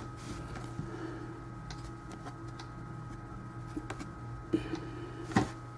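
Football trading cards being handled by hand, with a few light clicks and taps, the sharpest near the end, over a steady low hum.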